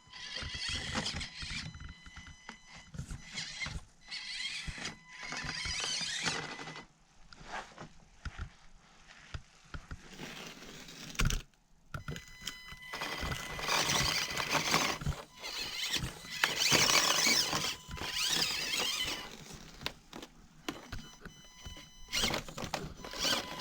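Axial SCX24 Deadbolt micro RC crawler's electric motor and geared drivetrain whining in repeated bursts as the throttle is worked on and off, with tyres scrabbling over the course. A sharp knock comes about eleven seconds in.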